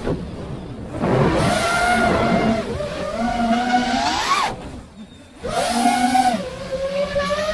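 5-inch FPV quadcopter's brushless motors whining, the pitch rising and falling with the throttle. The throttle is cut twice, briefly silencing the whine, and near the end the pitch climbs steadily.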